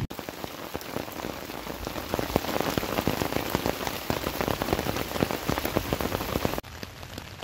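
Heavy rain pattering on a Hummingbird Heron rain tarp overhead, with rainwater running off its corner in a stream. About six and a half seconds in it drops abruptly to a softer rain hiss.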